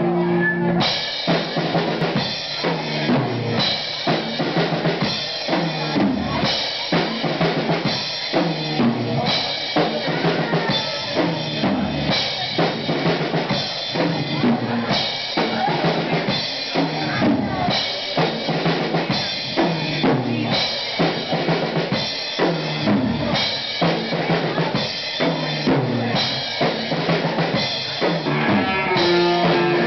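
A live band playing loud, funky rock: a drum kit keeps a steady beat with bass drum and snare under a bowed cello and electric guitar.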